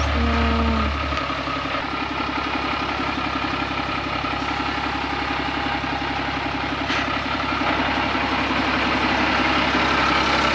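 Diesel engine of a 1983 ex-Army Unimog U1700L truck running steadily at low revs.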